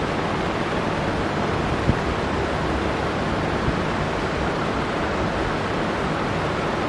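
Steady even rushing noise with no voice, with a single faint click about two seconds in.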